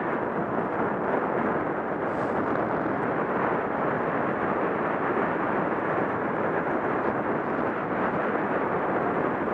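Steady rushing noise from a bike moving over a packed-snow trail: wind on the microphone mixed with tyre rumble, unbroken throughout.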